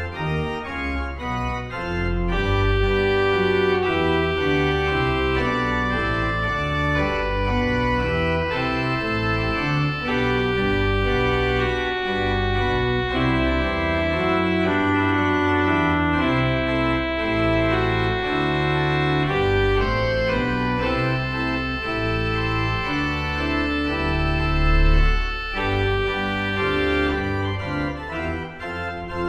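Organ playing the postlude after the dismissal: full, sustained chords over deep bass notes, changing every second or so, with a brief swell near the end.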